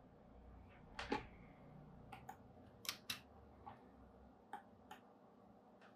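Faint, scattered clicks of a computer mouse, about ten in all, some in quick pairs, over near silence.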